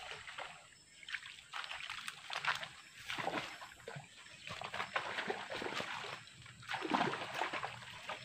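Water splashing and sloshing in irregular bursts as a buzzbait lure is reeled across the surface of shallow floodwater.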